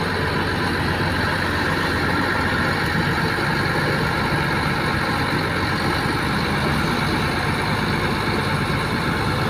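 Diesel engines of an FSD16 crawler bulldozer and a Cat 320B excavator running steadily under load while the dozer pushes soil.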